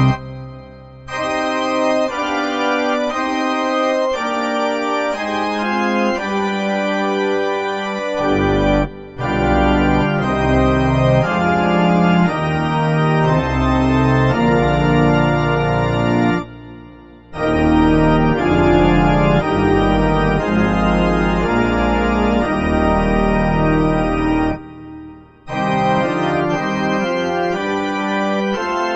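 Church organ music: slow, held chords played in phrases, with short breaks between phrases three times.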